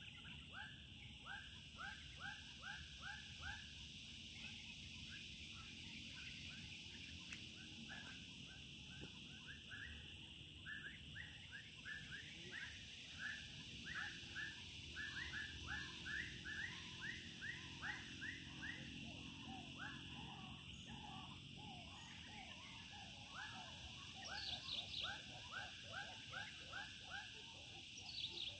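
Faint dusk chorus of calling animals: long runs of short falling chirps, several a second, over a steady high-pitched drone, with a few higher falling whistles near the end.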